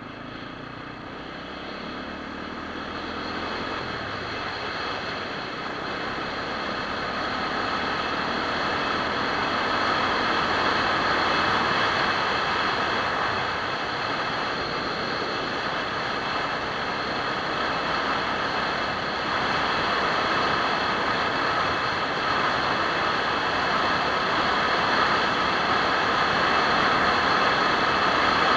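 SWM RS650R single-cylinder enduro motorcycle riding on a gravel road, engine running under way with wind rushing over the action-camera microphone. The sound builds over the first ten seconds or so as speed picks up, then holds steady.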